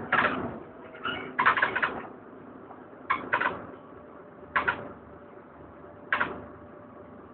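Inside a DAF DB250LF double-decker bus standing with its engine running, a steady low hum broken by short high squeaks or chirps. They come singly or in quick clusters of two to four, several times.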